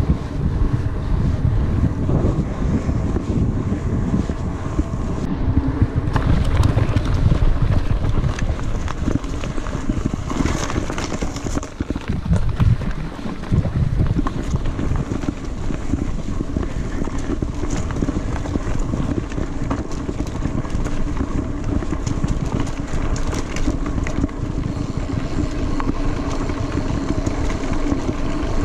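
Wind buffeting the microphone of a mountain bike's camera, with the rumble of its tyres rolling over a paved path and then a dirt forest trail, and scattered small knocks and rattles from the bike.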